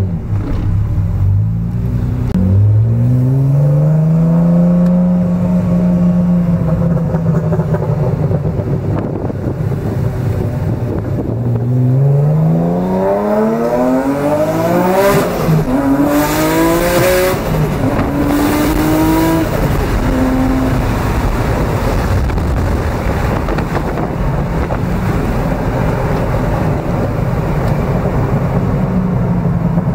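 Acura NSX V6 engine, tuned to about 680 horsepower, pulling hard through the gears. Its note climbs in pitch a couple of seconds in and holds. It climbs steeply again from about twelve seconds in, with a brief burst of high noise near the top, then settles to a steady lower drone.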